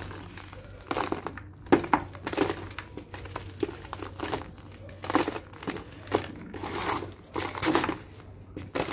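Dry lumps of sand-and-cement mix crumbled and crushed between the fingers over a sheet in a tub. It makes a run of irregular gritty crunches and crackles that come in quick uneven bursts.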